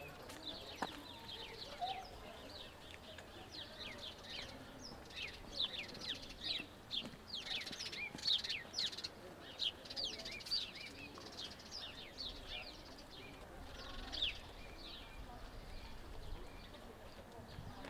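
Small songbirds chirping: a quick, dense run of short, high, downward-sweeping chirps, busiest in the middle and thinning out towards the end.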